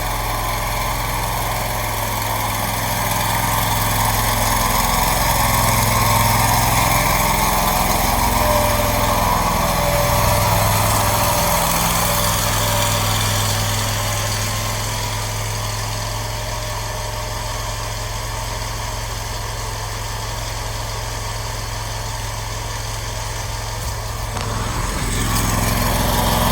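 Newly installed Briggs & Stratton engine on a Scag mower running steadily on its first run, with the blades not yet engaged. It swells slightly in level for a few seconds early on, then settles back.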